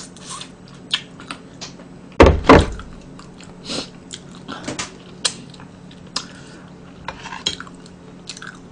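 Eating and tableware sounds: scattered clicks and taps of dishes and wooden chopsticks, with chewing. Two heavy thumps come a little over two seconds in.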